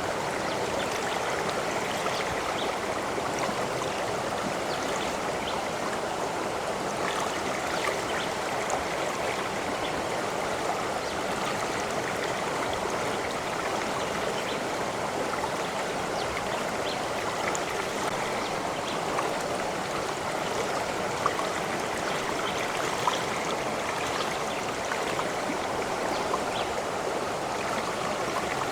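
Running water in a stream, flowing steadily with small splashes and drips now and then.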